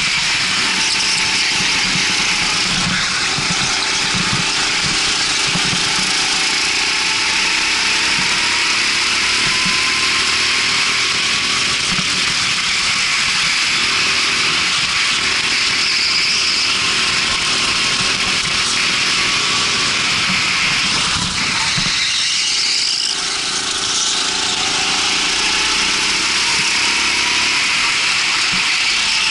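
Rental go-kart engine running under load, its pitch rising and falling as the kart speeds up and slows, under a steady hiss. The level dips briefly about two-thirds of the way through.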